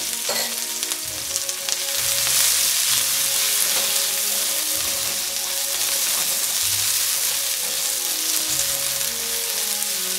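Sliced onion sizzling steadily in hot oil in a wok, stirred and tossed now and then with a spatula.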